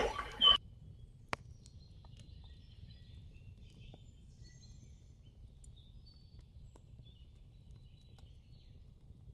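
Faint bird chirps, short scattered calls over a low steady background noise, with a single sharp click just over a second in.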